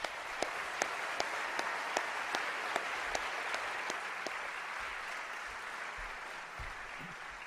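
Audience applauding at the close of a speech. One nearby pair of hands stands out with sharp claps about two or three a second, and the applause slowly dies down.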